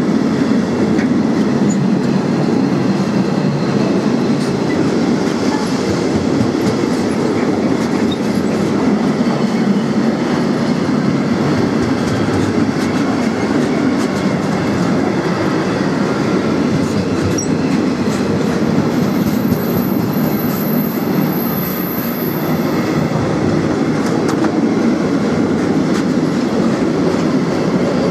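Freight train of Cargowaggon bogie vans rolling steadily past, a continuous rumble and clatter of wheels on the rails. A thin high-pitched squeal rises over it for a few seconds about two-thirds of the way through.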